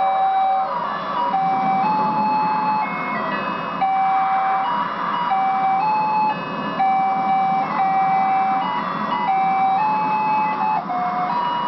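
Simple electronic toy tune playing: a melody of clear, held single notes stepping between a few pitches over a busier accompaniment.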